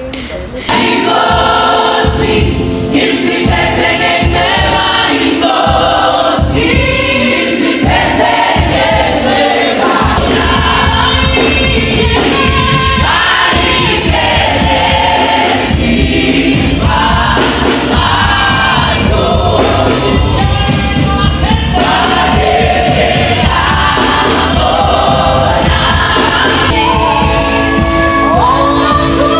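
Gospel music: a choir singing over a beat, starting abruptly about a second in.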